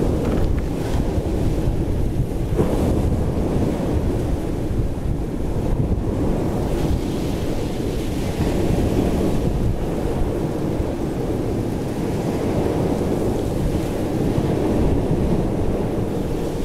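Sea waves washing steadily, with wind buffeting the microphone, making an even, low rushing noise.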